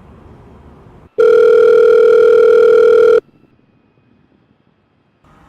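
Telephone ringback tone, the ringing a caller hears while the called phone is not yet answered. One steady electronic tone of about two seconds starts about a second in, between gaps of faint line hiss.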